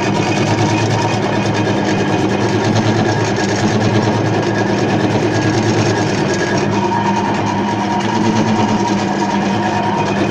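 Homemade lathe running steadily, its motor giving a constant hum under an even mechanical rattle.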